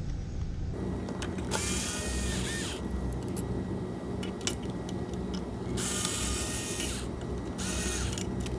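Power screwdriver backing out the module's corner screws: three spells of the motor whirring, two of about a second and a shorter one near the end, with small clicks and handling knocks between them.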